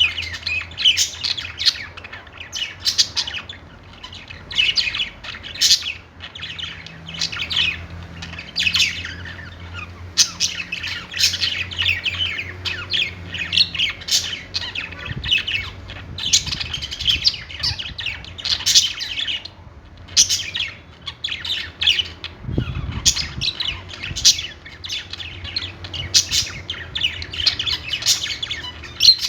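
Several budgies chattering, chirping and squawking together in quick overlapping bursts, with a faint low hum underneath.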